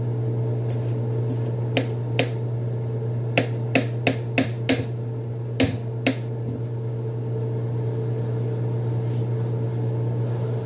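Knife chopping a red onion on a cutting board: about ten sharp clicks, coming quickest between about three and five seconds in and stopping after about six seconds. A steady low hum runs underneath.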